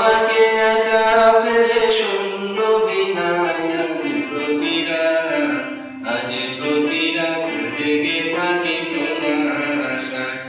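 A man singing a Bengali song, accompanying himself on a small electronic keyboard.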